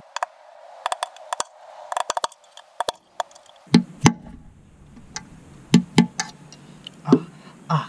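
A string of irregular sharp clicks and knocks, loosest in the first half and heavier and lower from about halfway in.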